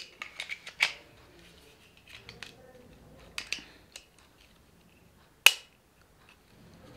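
Plastic clicks and rattles of a GoPro Hero 9 being pressed into a Ulanzi plastic cage, with a sharp snap at the start and a louder one about five and a half seconds in as the cage clicks shut around the camera.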